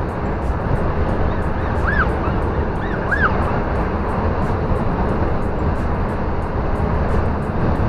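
Steady drone of a Scania R440 truck heard inside its cab while cruising on a highway: engine and road noise. Two short high chirps break through about two and three seconds in.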